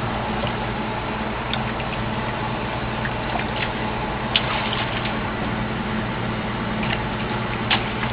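Water splashing and churning over the steady hum of an excavator's diesel engine running, with a couple of short sharp knocks.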